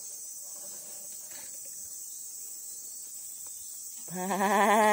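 Steady high-pitched drone of insects. About four seconds in, a man lets out a long, wavering drawn-out call, louder than the insects.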